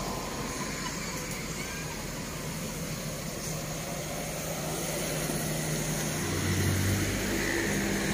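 Road traffic: cars driving past on a roadside, a steady run of tyre and engine noise, with an engine hum growing louder about six seconds in.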